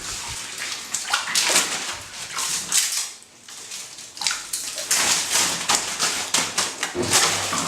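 Water splashing in a bathtub in irregular bursts, with a brief lull about three seconds in.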